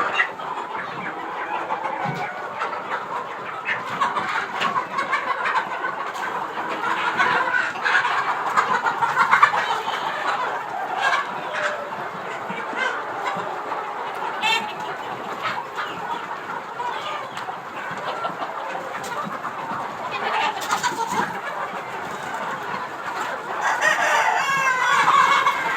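A flock of Aseel chickens clucking and calling continuously, many birds overlapping. A louder call rises above the flock near the end, likely a rooster crowing.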